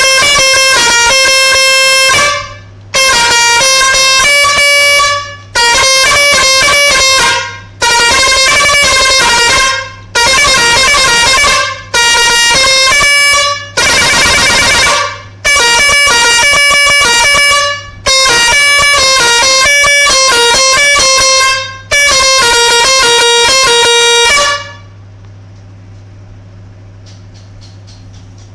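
A-Grade Tri Bigul three-trumpet air pressure musical horn playing a tune, very loud, in about ten phrases with short gaps between them. It stops a few seconds before the end, leaving a low steady hum.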